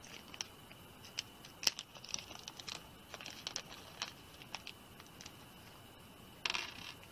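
Small clear plastic parts bag being handled, crinkling faintly with scattered sharp ticks, and a louder rustle of the bag near the end.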